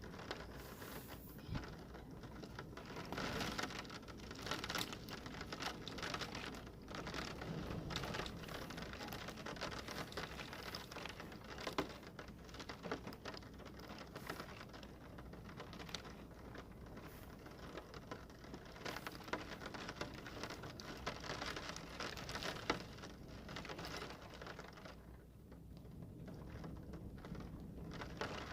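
Rain pattering on surfaces, swelling and easing in intensity, with many scattered sharp drop hits; two louder taps stand out, about halfway through and again about three-quarters of the way in.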